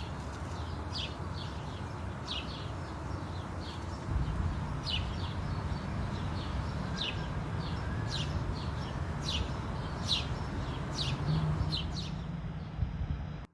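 Small birds chirping: short, high, downward-sweeping chirps, about two a second at irregular spacing. Underneath runs a steady low outdoor rumble.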